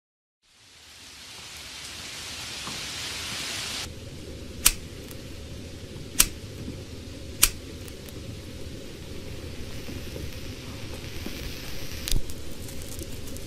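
Rain fading in as a steady hiss, which cuts off abruptly about four seconds in and leaves a low rumble. Three sharp, loud knocks follow about a second and a half apart, and a shorter noise comes near the end.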